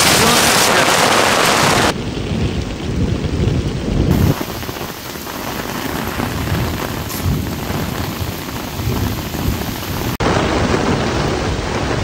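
Heavy rain pouring down in a thunderstorm. A loud, dense hiss of downpour breaks off abruptly about two seconds in to a quieter stretch with low rumbling, then the loud rain returns just as suddenly near the end.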